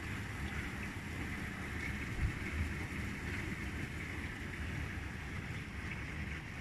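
Heavy rain falling steadily on a brick street and parked cars, an even hiss, with low rumbling wind buffeting the microphone and one small knock about two seconds in.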